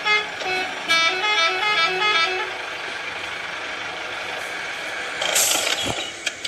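A horn tooting a quick tune of short notes for the first couple of seconds, then a steady noisy rumble, with a hissing burst and a low thud near the end.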